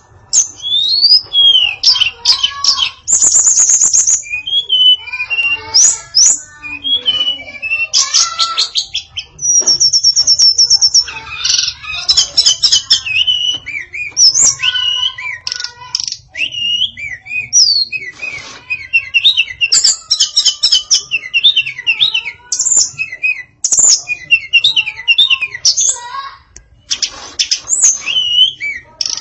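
Female tledekan songbird singing a long, varied song: rapid high chirps, whistled slurs and fast trills in quick phrases with brief pauses, including a held high trill a few seconds in and a buzzy rattle near the middle.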